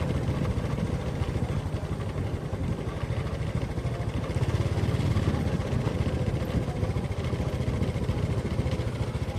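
An engine running steadily, a rapid even pulse of firing with no change in speed.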